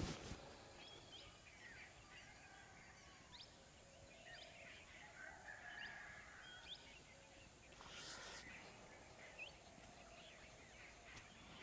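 Quiet outdoor ambience with scattered faint bird chirps and calls, and a short rustle about eight seconds in.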